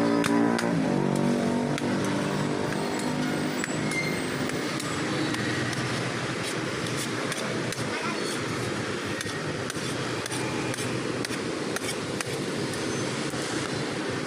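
Metal spatula repeatedly clinking, tapping and scraping on a large flat iron griddle (tawa) as potatoes are chopped and mashed, with irregular sharp clicks over a steady street background noise. A steady pitched hum sounds in the first second or so.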